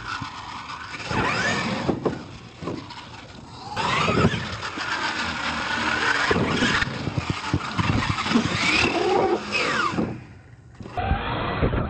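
Radio-controlled monster truck motors whining, the pitch rising and falling with the throttle, with several knocks as the trucks land off jumps.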